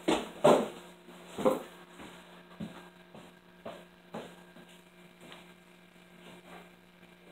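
A few sharp rustles and knocks in the first second and a half as someone moves away from the table, then a steady low electrical hum with faint ticks scattered every second or so.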